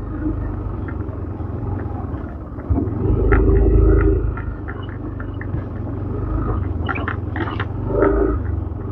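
Yamaha Aerox scooter's single-cylinder engine running at low speed over a rough dirt road, with a steady low rumble. The engine swells briefly about three seconds in, and a few sharp rattles come about seven seconds in as the scooter goes over bumps.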